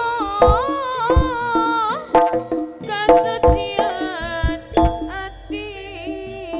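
Live jaranan music: kendang hand drums striking an irregular pattern of sharp strokes under a sustained melody line that bends and wavers in pitch.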